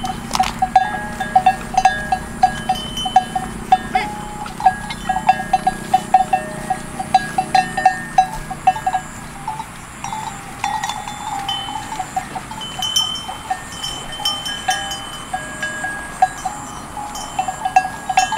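Bells hung on water buffalo clanking in a rapid, irregular patter as the animals move, each clank ringing one clear note.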